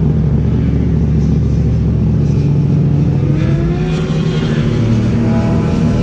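Car engine running steadily close by, its revs rising slightly about three and a half seconds in.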